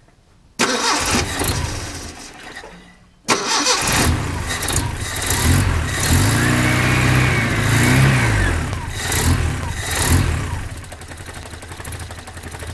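1972 Datsun 510's L20B four-cylinder engine being started: it catches about half a second in, fades and cuts out near three seconds, then is started again and runs, revving up and down in the middle before settling to a steadier idle near the end. The carburetor base vacuum leak has just been fixed by tightening the adapter-plate bolts, and the idle is better than before.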